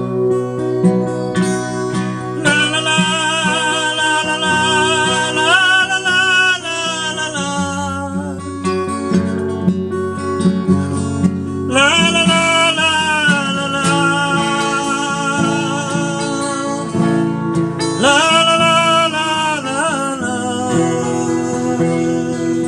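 Acoustic guitar played under a man's wordless singing, which comes in twice: a few seconds in and again about halfway through, as long wavering held notes.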